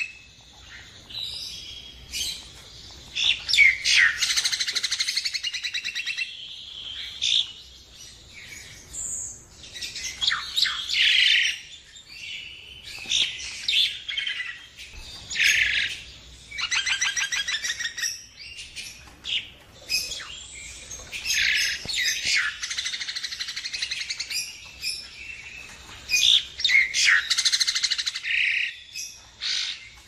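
Common myna calling: a varied string of chattering notes, squawks and rapid clicking rattles in bursts with short pauses between them.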